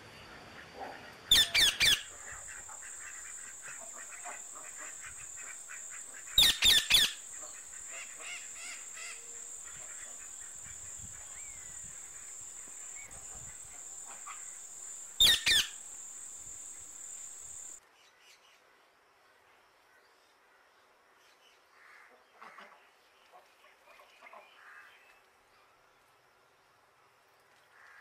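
Parrots giving three bouts of loud, harsh, rapid squawks, spaced several seconds apart, over a steady high-pitched insect drone. Past halfway the drone cuts off suddenly, leaving only a few faint short chirps of a red crossbill.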